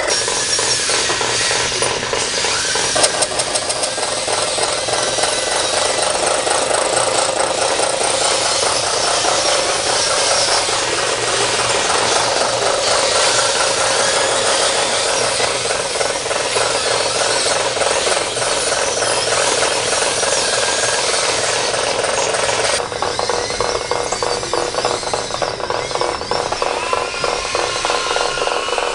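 Radio-controlled scale construction machines (skid steer loader, dozer, cable shovel, dump trucks) working in dirt: a steady mechanical whir with a fast, continuous rattle.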